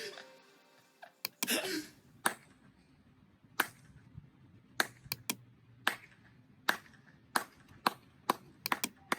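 A series of sharp, isolated clicks, roughly one a second, coming closer together near the end.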